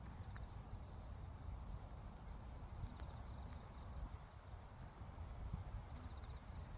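Wind buffeting the microphone as an uneven low rumble, over a faint steady high-pitched chirring.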